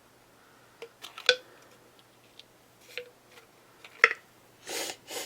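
Hard plastic .68 calibre defense balls clicking and knocking as they are handled, a handful of sharp separate clicks with two louder knocks, then a brief rustle near the end.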